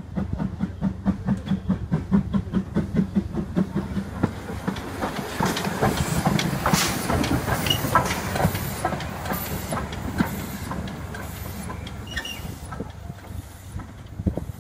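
A steam tank locomotive, BR black Ivatt Class 2MT 2-6-2T No. 41313, passes close by. First comes a quick rhythmic beat of about three to four a second. Then a loud hiss of steam peaks in the middle and fades toward the end.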